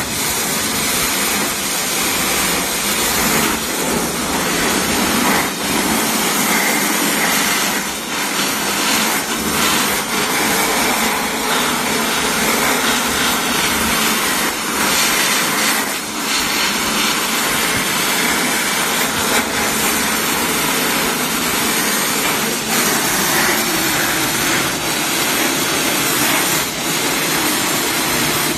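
Abrasive blast nozzle firing white fused alumina (white corundum) grit at a steel frame: a steady rushing hiss that dips briefly a few times.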